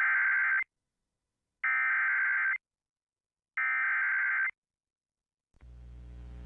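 Emergency Alert System SAME header: three bursts of warbling digital data tones, each a little under a second long with about a second's pause between, marking the start of an incoming weather alert. Near the end a low buzzing hum fades in.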